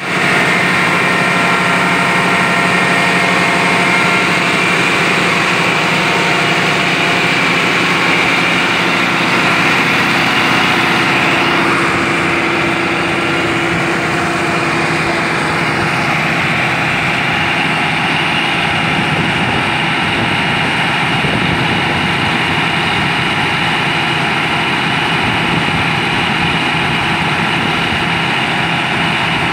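Diesel engine of a large John Deere farm tractor idling steadily.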